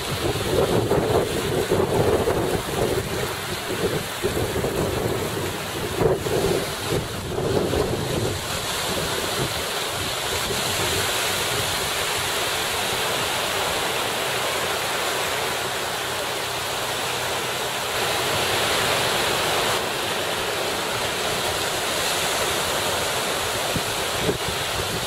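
Small sea waves washing in the shallows, with wind buffeting the microphone. The sound is gusty and uneven for the first several seconds, then settles into a steady rush of surf and wind.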